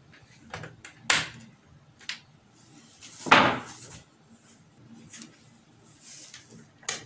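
Several sharp plastic clicks and knocks, with a longer, louder clatter a little over three seconds in, as the LED TV's plastic reflector supports are pressed into place in its back casing.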